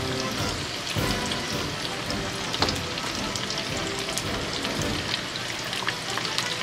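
Chicken karaage deep-frying in hot oil in a small pot: a steady sizzle with scattered crackles and pops. Music plays in the background.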